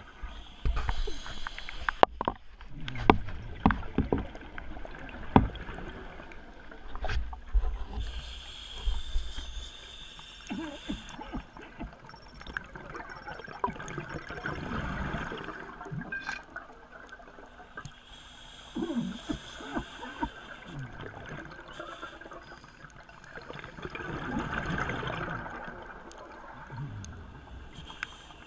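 Underwater sound: bubbling, gurgling water in irregular swells, with scattered sharp clicks and knocks during the first several seconds.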